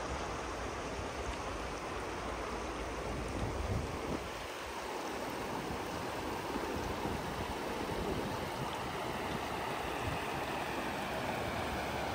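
Fast-flowing river water rushing down, a steady, even rush.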